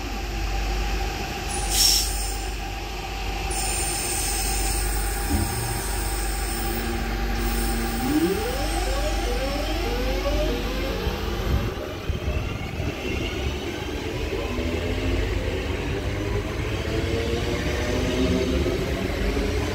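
Electric multiple-unit train pulling away from the platform, its traction motors whining in repeated rising steps as it gathers speed over a low rumble from the wheels. A short sharp hiss about two seconds in.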